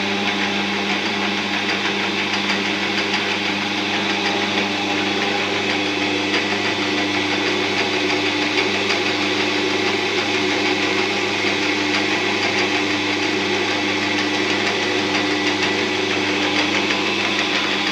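1945 Hercus 9-inch model C lathe running steadily in back gear, its headstock and chuck driven by belt from the electric motor: a steady hum with the fast, even whirr of the back gears meshing on top.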